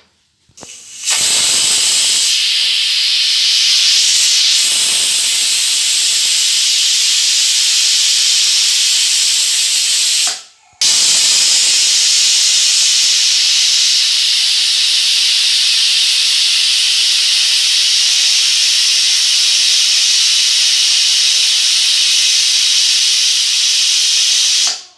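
Surya Accent aluminium pressure cooker whistling: steam hisses loudly out from under the weight valve in two long whistles, with a short break about ten seconds in. The whistles mark that the cooker has come up to pressure.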